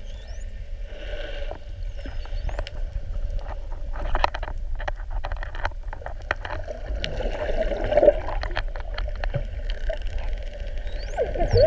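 Bottlenose dolphins heard underwater: scattered sharp clicks and high, rising-and-falling whistles over a steady low water rumble. A buzzy call comes about two-thirds of the way through, and a burst of squeaky, croaking calls comes at the very end.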